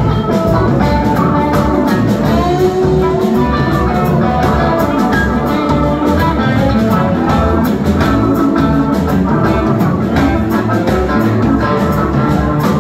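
Live rock band playing an instrumental passage: electric guitar lines over drum kit and bass, with keyboards.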